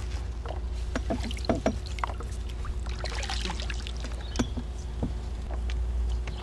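Water sloshing and splashing around a small fishing boat, with scattered short knocks and clicks, over a steady low rumble.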